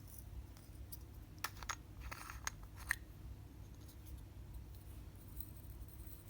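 Slime being worked by hand: a short run of sticky clicks and pops between about a second and a half and three seconds in, the last one the loudest.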